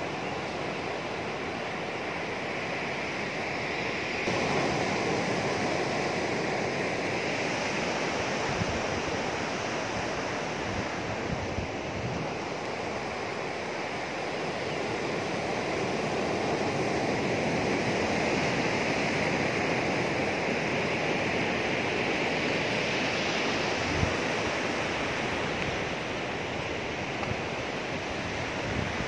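Sea surf washing on a sandy beach: a steady rush that swells and eases over several seconds, growing louder about four seconds in.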